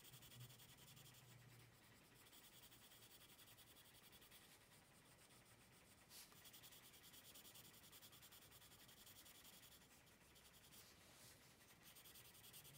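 Faint, steady scratching of a Faber-Castell Polychromos oil-based coloured pencil shading on colouring-book paper in short repeated strokes, with a single faint tick about six seconds in.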